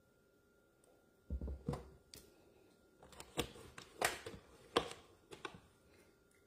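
A low thump, then a metal tablespoon tapping and clinking against a mixing bowl several times while egg whites are spooned in.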